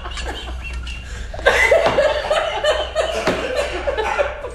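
A group of people laughing at a table: low chuckling at first, then a louder burst of hearty laughter about a second and a half in.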